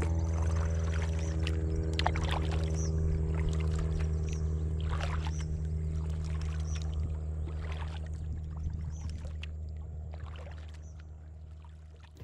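Kayak paddle strokes: the paddle blades dipping and splashing in the water, with irregular drips and splashes, over a steady low hum. Everything fades out over the last few seconds.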